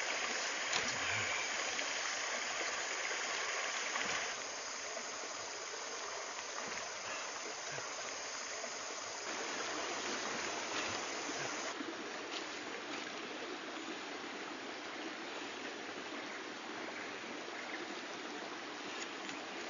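Steady rush of a shallow stream flowing over rocks, a little louder for the first four seconds.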